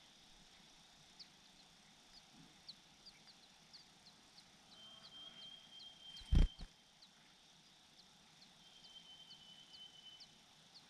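Thin, high chirps repeating two or three times a second, with a steady high buzz that comes and goes. A single loud, dull thump about six seconds in is the loudest sound.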